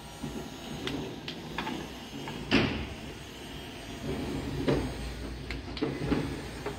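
Toys and make-up pieces being handled: a series of light clicks and knocks, the loudest about two and a half seconds in.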